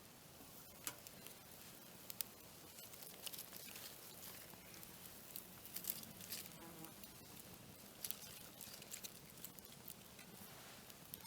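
Faint, irregular crackling and small pops of a fire burning in a small wood-burning camp stove.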